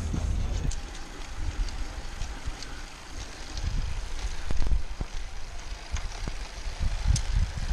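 Wind buffeting the microphone of a camera on a moving road bike, a low, uneven rumble that grows stronger in the second half, over faint tyre and road hiss with occasional sharp clicks and rattles.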